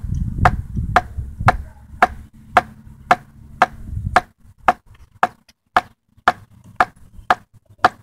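Small multi-tool hatchet chopping into a stick, about two sharp blows a second in a steady rhythm, notching the wood but not yet cutting through.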